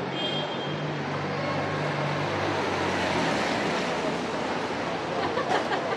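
Street noise on a wet city street: a low steady hum that fades out about halfway through, a broad hiss that swells around the middle, and a few sharp clicks near the end.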